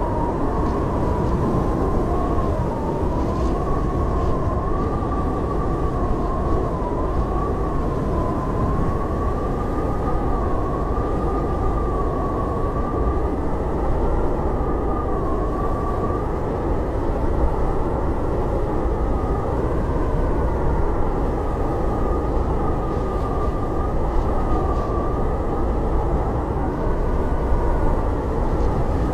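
Blizzard wind howling: a steady low rushing roar with a thin, wavering whistle on top that slowly rises and falls in pitch.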